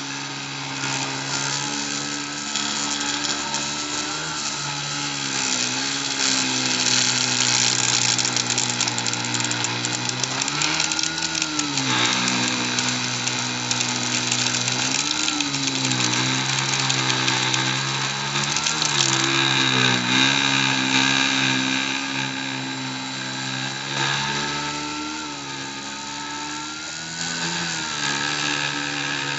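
Dremel rotary tool running steadily in a Cyclone PCB CNC machine while it cuts into acrylic, its whine briefly sagging in pitch and recovering several times.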